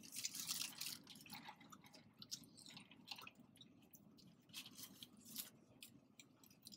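Soft chewing and wet mouth sounds of someone eating, with a burst of crisp crackling in the first second and scattered small clicks after.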